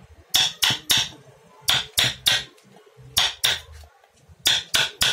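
Hammer blows in woodworking, sharp strikes in four quick groups of two or three, each group about a third of a second between blows.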